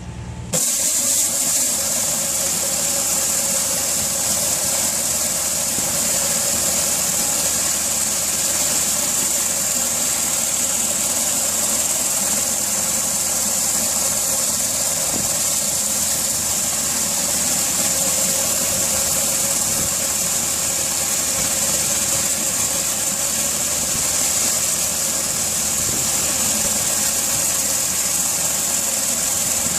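Pressure washer running steadily with the hiss of water jets spraying from a rotary flat surface cleaner. The spray comes on suddenly about half a second in, then holds steady.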